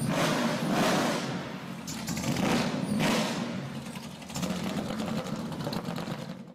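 Nissan S14's swapped LS3 V8 blipped several times, the revs rising and falling over a low running note, then settling to a choppy, lumpy idle; the sound cuts off suddenly at the end.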